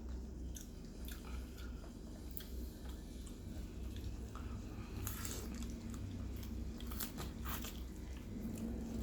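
Someone chewing and biting into roast chicken close to the microphone, with sharp crunchy clicks, the loudest clusters about five and seven seconds in, over a steady low hum.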